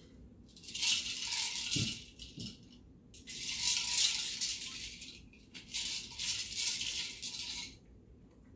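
A hollow plastic toy ball with loose pieces inside rattling as a dog noses and rolls it across the carpet, in three runs of about two seconds each with short pauses between.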